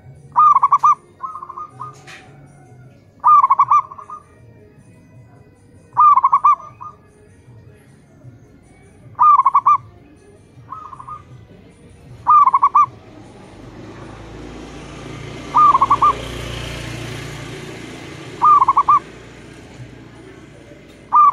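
Zebra dove (perkutut) cooing: a short burst of quick coo notes, repeated about every three seconds, with a fainter, shorter call following twice. A rushing noise swells and fades behind the calls about two-thirds of the way through.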